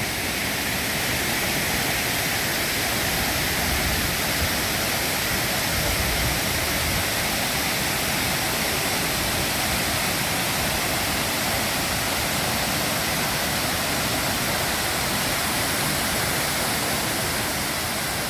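Waterfall: water pouring and crashing in a constant, loud rush.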